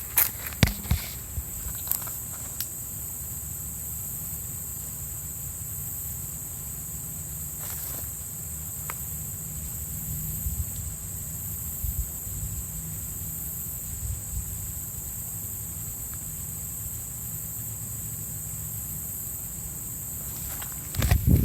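Steady high-pitched insect chorus over a low background rumble, with a few sharp clicks in the first second.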